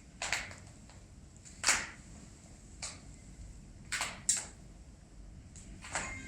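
Polishing strokes on patent leather boots: about six short rubbing swipes at uneven intervals, the loudest about a second and a half in.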